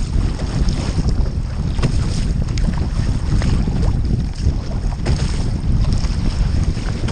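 Loud wind buffeting the microphone as a surf ski is paddled on open ocean, with occasional water splashes from the paddle strokes and the hull.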